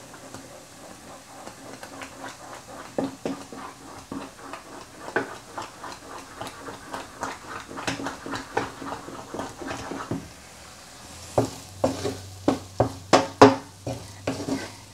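Stiff yellow maize-meal ugali being stirred and pressed in a pot with a cooking spoon: a run of scraping knocks, about two a second, growing louder and more frequent about eleven seconds in.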